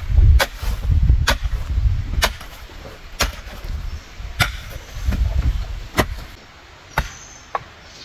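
Hoe blade chopping into dry, stony soil, one sharp strike about every second, with a low rumble under the first strokes and again near the middle.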